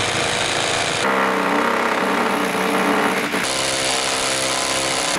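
DeWalt DCH263 cordless 18 V rotary hammer boring into brick with a 67 mm core bit, running continuously under load. Its tone shifts about a second in and again past three seconds.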